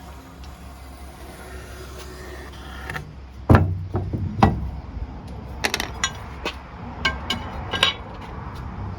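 A heavy thump about three and a half seconds in, then a second hit and a run of sharp, irregular knocks and clicks: a wooden door being handled and tried in its frame.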